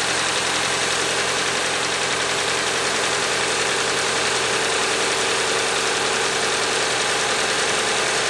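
Subaru Impreza's 2.0-litre FB20 flat-four boxer engine idling steadily, with an even hiss, while it warms up toward the thermostat opening. The engine has oil in its coolant, which the owner takes for a failed head gasket.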